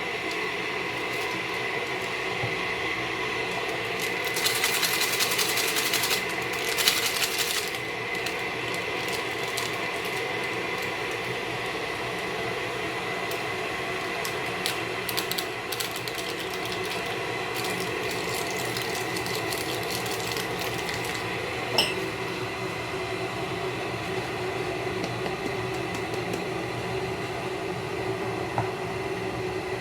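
Steady mechanical hum with a high whine. Bursts of rustling noise come about four to eight seconds in, and there is one sharp click about two-thirds of the way through.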